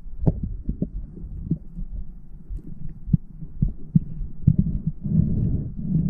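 Muffled underwater sound through a camera's waterproof housing: a low rumble of moving water with irregular sharp clicks and knocks, swelling near the end.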